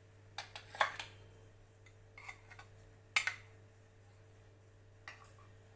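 A few light clicks and taps of kitchenware being handled, the loudest just after three seconds in, over a low steady hum.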